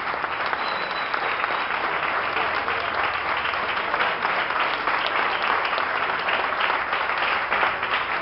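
Audience applauding: a dense, steady wash of many people clapping.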